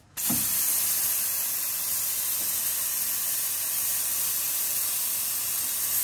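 Nook Mini espresso machine's steam wand opened and venting steam into a cloth wrapped round its tip: a steady, loud hiss that starts suddenly right at the beginning and holds.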